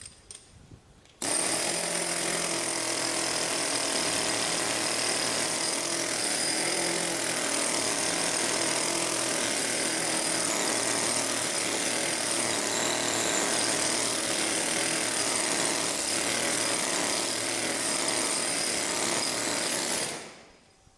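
Hand-held rock drill hammering a hole into a granite block, the drilling step of splitting the stone. It starts abruptly about a second in, runs steadily, and dies away near the end.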